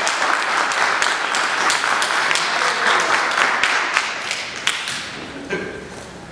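Congregation applauding, a dense patter of many hands clapping that thins out and fades about five seconds in.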